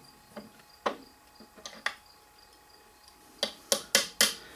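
Small metal tools and parts being handled on a workbench: a few light clicks, then four sharp taps in quick succession near the end.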